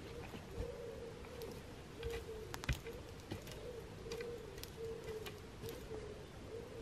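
A long-handled tool scraping and raking through dry pine-needle litter on the forest floor: faint scratching with scattered light clicks, a few sharper ones a little over two seconds in. A faint wavering tone keeps coming back at one pitch underneath.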